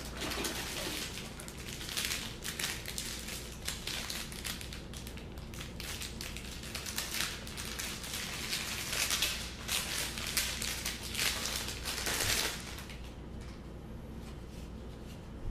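Packaging crinkling and rustling with small irregular crackles as the power cable and laptop battery are unwrapped; it stops about twelve seconds in.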